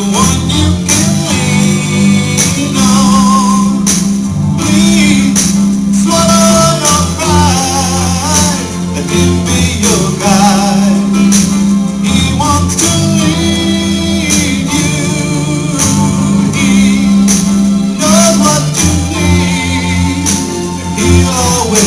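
Recorded gospel song playing: singing over guitar and bass, with a tambourine keeping a steady beat.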